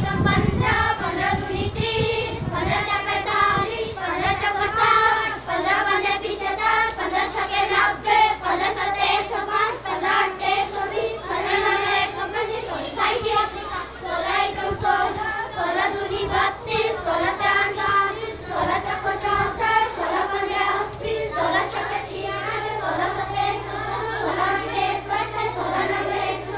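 A group of children singing multiplication tables together to a Garhwali folk-style dance tune.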